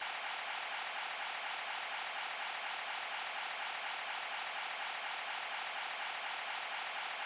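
Steady static hiss with a faint quick, even pulsing in it, no music or voices.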